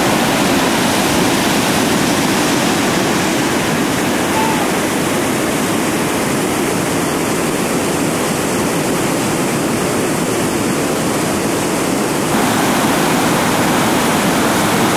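Whitewater rapid rushing steadily: a continuous loud wash of falling, churning water, with an abrupt shift in level and tone about twelve seconds in.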